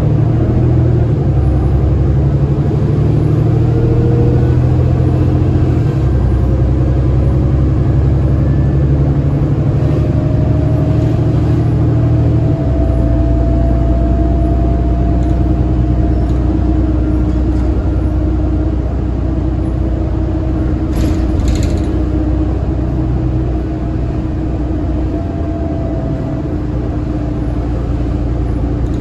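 Cummins ISL9 inline-six diesel of a New Flyer D60LFR articulated bus running under way, heard from inside the cabin; the engine note changes abruptly about 6 and 13 seconds in as the Allison B500R automatic transmission shifts up, with a faint rising whine over it. A short rattle near 21 seconds in.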